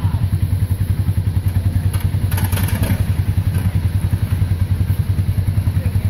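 An engine running steadily at idle, a low, evenly pulsing hum. A brief clatter about two and a half seconds in.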